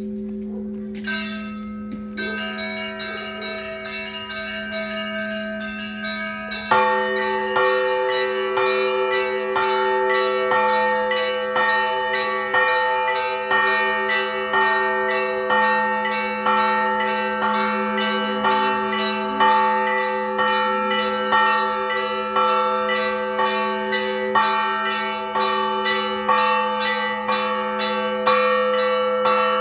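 Orthodox church bells rung together for a service. A deep bell hums steadily beneath. Smaller bells strike in a fast, even rhythm, growing fuller and louder from a heavy strike about seven seconds in.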